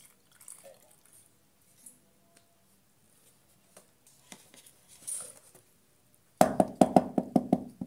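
Faint handling of a plastic funnel and tubes, then, near the end, about a second and a half of rapid knocking, roughly seven hollow ringing knocks a second. This is the bamboo tubes of lemang being tapped to settle the coconut milk into the glutinous rice.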